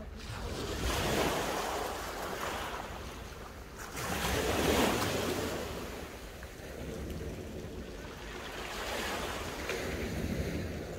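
Small sea waves breaking and washing up a shingle beach, surging three times with the loudest wash about halfway through.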